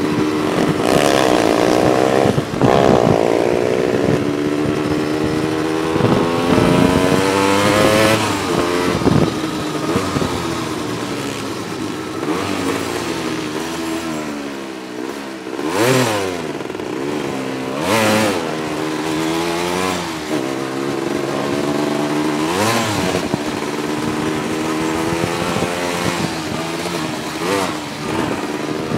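Four-wheeler (ATV) engine running hard, its pitch climbing and dropping again and again as the throttle is opened and closed. There are a couple of brief loud rushes of noise around the middle.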